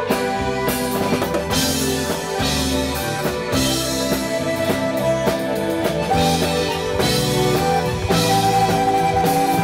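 Tejano band playing an instrumental passage: a drum kit keeps a steady beat with bass drum and snare under held accordion notes.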